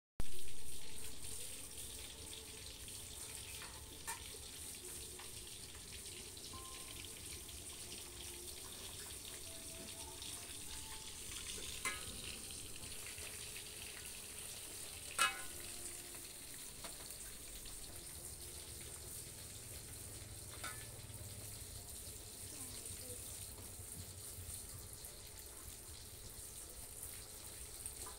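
Steady faint hiss with a few scattered clicks and taps. A louder rush at the very start fades away over about two seconds.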